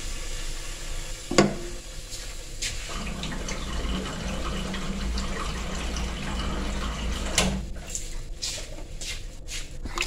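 Water running steadily for a few seconds, with a clink about a second in, then water poured and splashing into a pot of yogurt and gram-flour batter right at the end.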